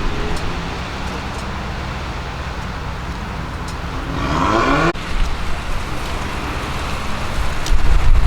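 Porsche 997 Turbo's twin-turbo flat-six through a SOUL Competition exhaust, running low and steady. It revs up sharply about four seconds in and cuts off abruptly about a second later, then a deeper, louder rumble builds near the end.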